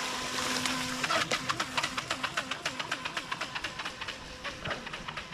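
Small brushed-motor RC jet boat running on the water. Its tone holds steady for about a second, then wavers, along with a rapid run of ticks that fade out after a few seconds.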